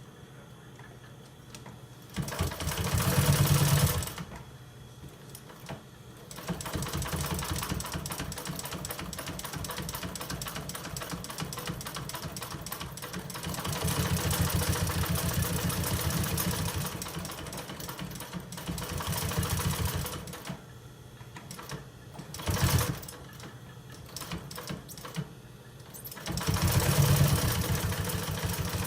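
Industrial sewing machine with a clutch motor stitching in stop-start runs: a short fast burst, a long run that speeds up and slows down with pressure on the clutch pedal, a brief burst, and another fast run near the end. The pedal has been fitted with a homemade stop to slow the machine.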